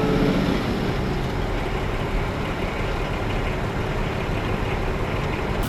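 Volkswagen LT camper van running, a steady low engine drone.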